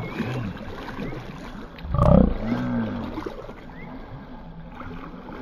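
A large arapaima splashing at the surface as it swims off after release. About two seconds in comes a heavy low thump, followed by a short low voice-like sound.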